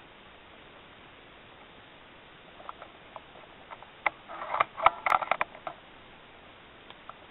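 Air rifle handling noise: a few small clicks, then a quick clattering run of clicks and rattles about four to six seconds in.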